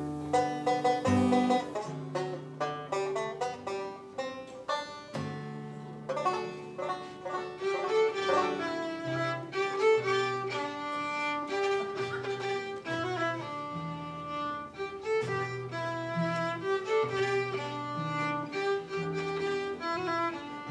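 Instrumental introduction by an acoustic string band: a bowed fiddle plays the melody over strummed guitars and banjo, opening with a few strummed chords before the tune comes in about two seconds in.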